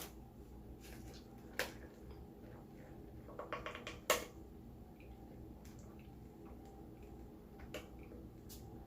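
Quiet eating and food-handling noises: a few scattered sharp clicks and taps, with a short cluster of small crackles about three and a half seconds in and the sharpest tap just after four seconds.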